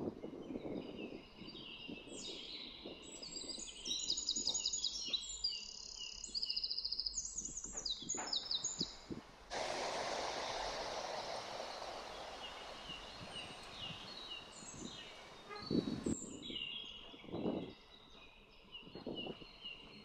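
Small songbirds chirping and trilling in the background, quick high repeated notes, busiest in the first half and picking up again near the end. About halfway through, a steady hiss starts abruptly, runs for about six seconds, then cuts off.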